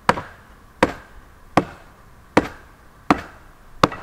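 Hammer blows on wood, six strikes in a steady rhythm about three-quarters of a second apart.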